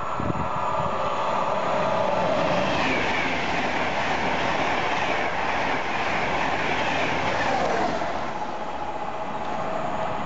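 High Speed Train (Class 43 power cars with Mark 3 coaches) passing at speed: a loud rush of wheels on rail with clatter from the coaches. A whine falls in pitch as the train goes by, and the noise eases off near the end.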